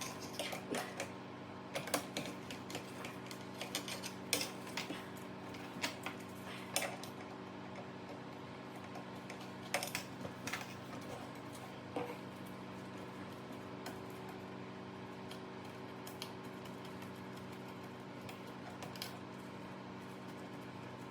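Irregular sharp clicks and knocks, like small hard parts or tools being handled, thick in the first several seconds and then sparse, over a steady mechanical hum.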